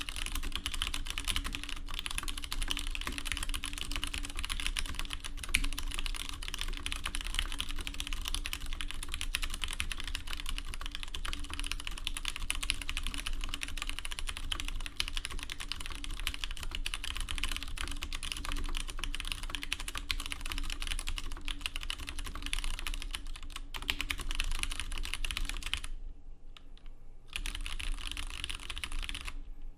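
Fast, continuous typing on a Leopold FC750R mechanical keyboard with stock Cherry MX Brown switches and PBT keycaps: a dense clatter of keystrokes. There is a short lull about 26 seconds in, then the typing resumes.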